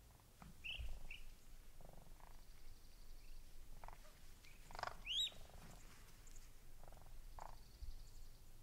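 Lesser sandhill crane family calling: short, high, rising peeps from the colts, scattered through, the loudest about five seconds in, among low, pulsed, purring trills.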